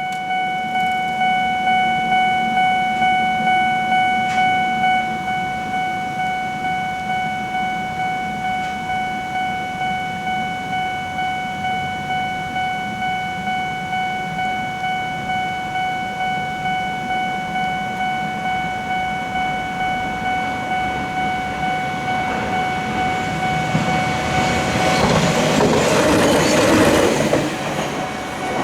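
Japanese level-crossing warning bell ringing its steady electronic "kan-kan" in an even rhythm of about two to three strokes a second. From about 22 s in, a passing train's rumble and rail noise swell under it and are loudest a few seconds before the end.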